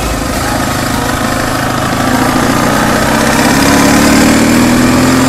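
Motorcycle engine running as the bike rides along, its pitch rising slowly as it gathers speed, over a steady rush of noise.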